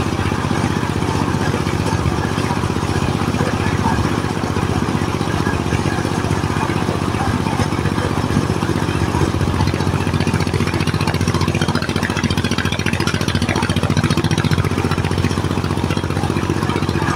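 Diesel-powered mobile corn sheller running steadily under load: a constant engine drone with a dense rattle of cobs being threshed and kernels spilling out.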